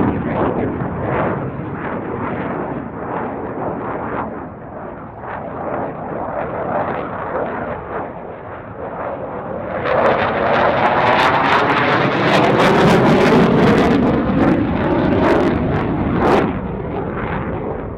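Jet noise from a Saab JAS 39C Gripen's single Volvo RM12 turbofan during a display pass, a crackling roar throughout. About ten seconds in it grows louder as the jet passes closer, with a whooshing sweep that falls in pitch, then it drops off sharply about sixteen seconds in.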